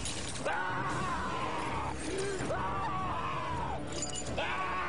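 Broken glass crunching and shattering under a man's feet as he walks on it, in several sharp bursts.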